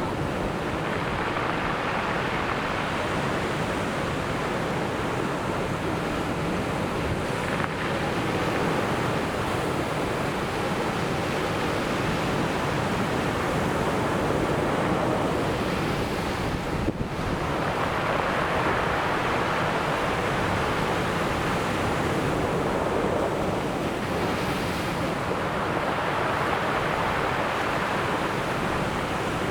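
Ocean surf breaking and washing on a beach: a continuous rush of waves that swells and eases every several seconds.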